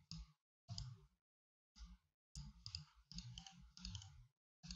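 Faint, scattered clicks of a computer mouse, a dozen or so short ones with near silence between them.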